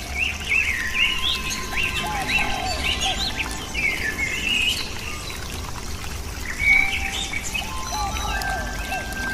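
Several birds chirping and twittering in quick, varied calls, over faint sustained background tones.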